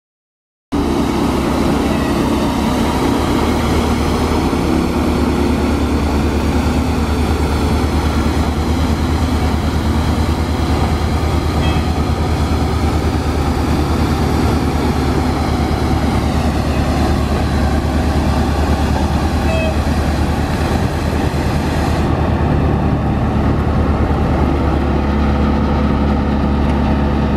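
Diesel engine of a 1993 Ford CF7000 street sweeper truck running steadily at an even speed.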